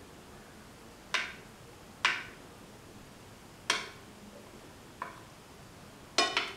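Sharp clicks and taps from a hand working marinated paneer fingers around a dish, about five of them a second or more apart, the last a quick double tap that rings briefly.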